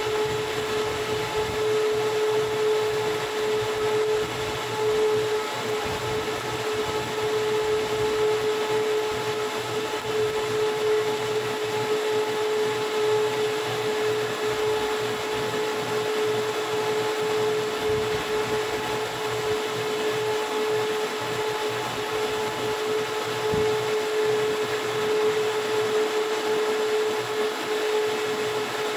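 A machine's motor running steadily: a constant hum with a steady mid-pitched whine that does not change.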